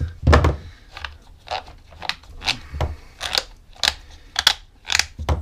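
Irregular sharp plastic clicks, about two a second, with a few dull knocks, as the tool-less tightening knob on a Ryobi chainsaw's side cover is turned and worked loose by hand.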